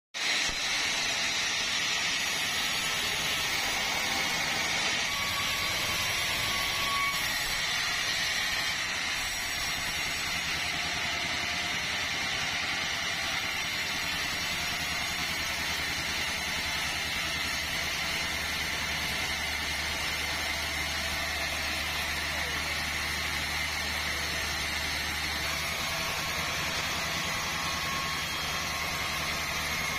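Sawmill machinery running steadily, a continuous mechanical noise with a high whine; a low hum grows a little stronger about halfway through.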